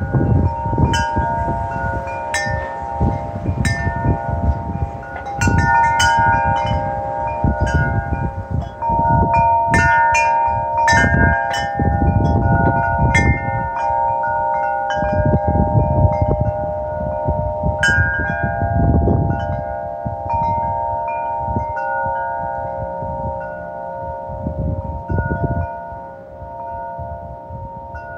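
Wind chimes ringing in the wind, several tones sounding together and struck again and again. Gusts of wind rise and fall underneath, easing off near the end.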